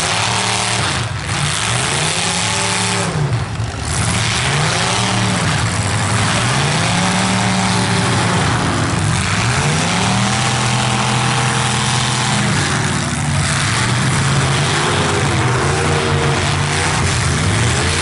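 Engines of full-size stock demolition derby cars revving up and falling back over and over, each rev a rising and falling whine lasting a second or two, over a steady loud hiss.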